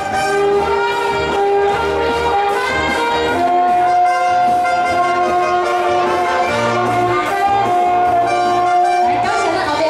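Instrumental background music: a slow melody of long held notes over a soft accompaniment.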